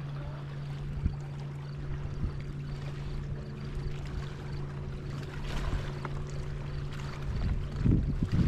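A steady low motor hum under water and rumble noise, with a few faint clicks. Near the end, gusts of wind buffet the microphone.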